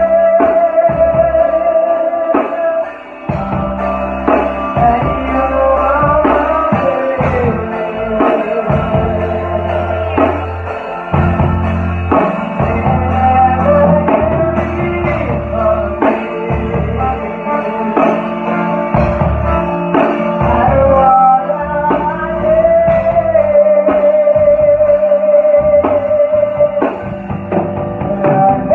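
Live band playing lovers rock: singing with long held, wavering notes over bass guitar, electric guitar and drums.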